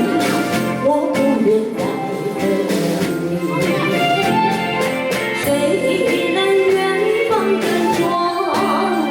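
A song playing: instrumental backing with a steady beat and a singing voice.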